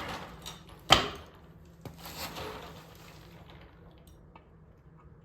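Hand tools at work on a dirt bike's rear chain adjuster: one sharp metallic clank about a second in, then a short stretch of softer handling noise and a few light clicks.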